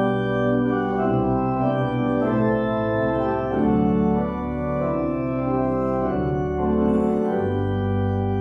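Church organ starts abruptly and plays a hymn in slow, sustained, changing chords, with a deep held bass note coming in near the end.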